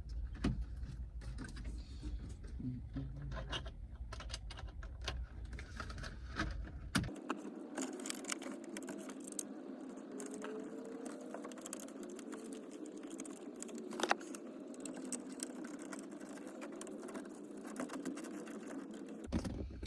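Small clicks, taps and rattles of hand work on a car door panel: an electrical connector being plugged in and the panel's screws being driven by hand, with one sharper click about fourteen seconds in. From about seven seconds in a steady hum sits behind the clicking.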